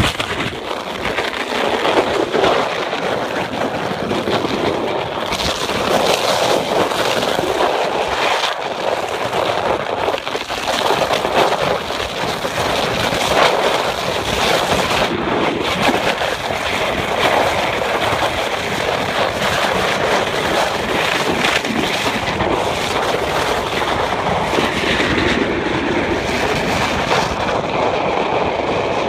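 Boogie board sliding fast down an ice-covered street: a steady, loud rushing scrape of the board over the ice, with wind buffeting the microphone.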